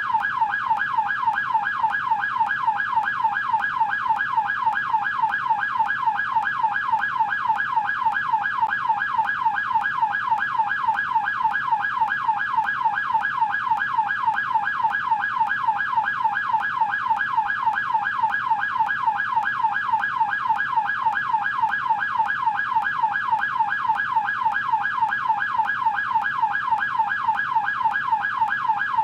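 American police car electronic siren in yelp mode: a rapid, evenly repeating rise and fall in pitch at about three cycles a second.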